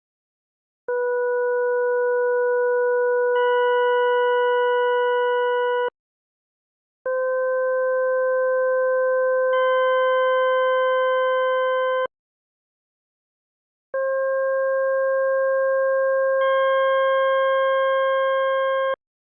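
Pure computer-generated sine tones from the Desmos graphing calculator: three held chords of about five seconds each, separated by short silences. Each chord is a low tone with evenly spaced higher tones above it, and two more high tones join partway through each.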